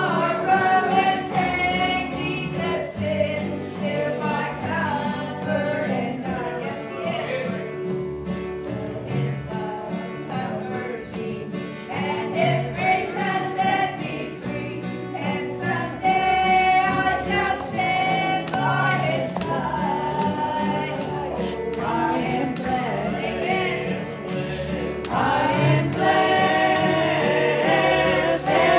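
A woman singing a gospel song into a microphone over instrumental accompaniment with sustained low notes, growing louder near the end.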